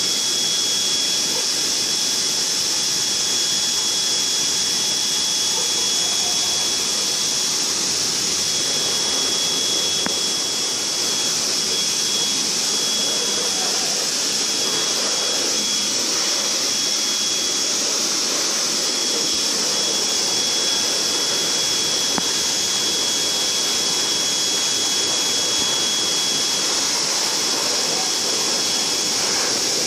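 Dog grooming blow dryer running steadily, drying a poodle puppy's coat. It makes a loud rush of air with a thin high whine over it.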